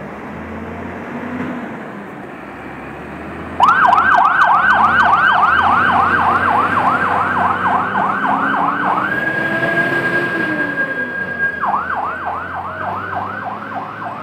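Fire engine's electronic siren sounding over the truck's engine rumble: it starts suddenly a few seconds in with a fast yelp of about four rising-and-falling sweeps a second, switches to a steady high tone for about two and a half seconds, then goes back to the fast yelp.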